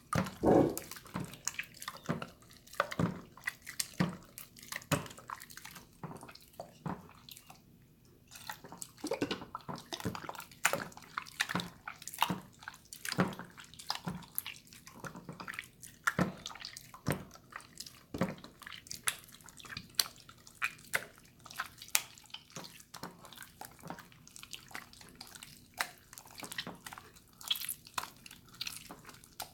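Water slime being squished and patted by hand: wet splashing, dripping squelches at an irregular pace of a few a second, with a short lull about eight seconds in.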